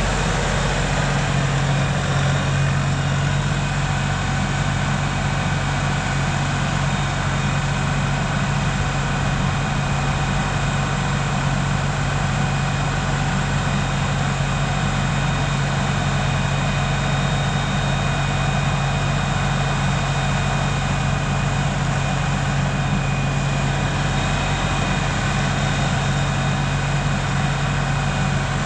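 LS tractor's diesel engine running at a steady, unchanging pitch.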